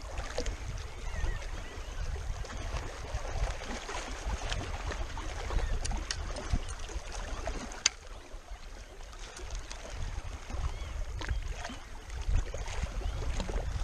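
Wind rumbling on the microphone and water lapping along a rocky lakeshore, with a few faint clicks and one sharper click about eight seconds in.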